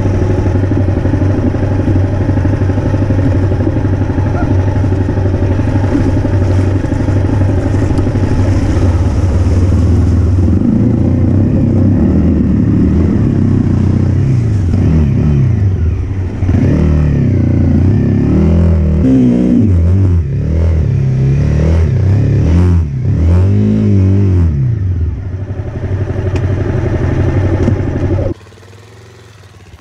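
Honda CRF250L's single-cylinder trail-bike engine heard close up, running steadily at first, then revving up and down over and over as the bike is ridden along a rough lane. The sound cuts off suddenly near the end.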